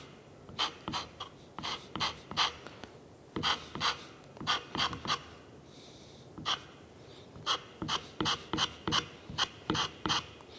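Hand scraper taking short, quick strokes across a Turcite wear strip on a lathe cross slide, about three strokes a second in runs with brief pauses between. Each stroke cuts down a high spot to improve the bearing contact.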